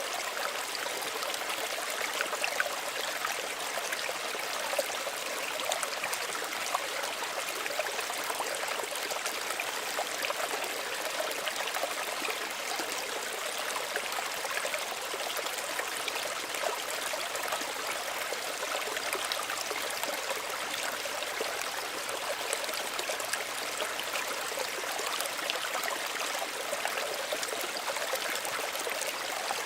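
Small stream of running water, trickling and babbling steadily over stones, with many small splashes and gurgles.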